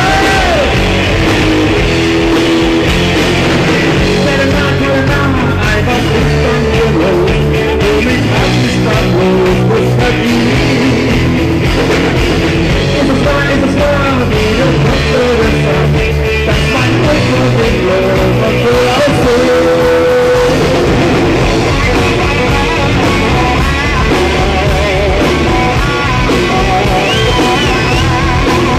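Live rock band playing: electric guitar, bass and drum kit at a steady loud level, with some singing.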